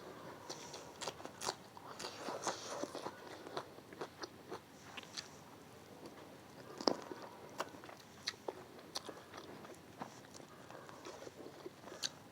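Close-miked chewing and biting of food, with irregular crisp crunches and wet mouth clicks.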